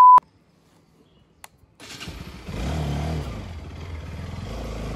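A steady test-tone beep cuts off just after the start, followed by about a second and a half of near silence. About two seconds in, a motorcycle engine comes in and runs, rising briefly in pitch around three seconds in, with road and wind noise.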